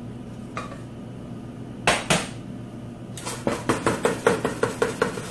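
A kitchen utensil knocking against a dish as spiral pasta is added to the bowl: two sharp knocks about two seconds in, then a quick run of about ten taps, roughly five a second, each with a short ring.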